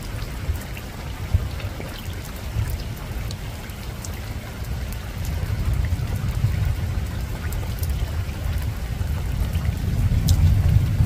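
Steady rain falling on a rooftop, with scattered sharp drop ticks, over a low rumble of distant thunder that swells near the end.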